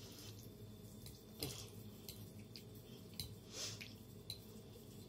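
A person chewing food with the mouth close to the microphone: a handful of short, wet mouth clicks and smacks at irregular intervals.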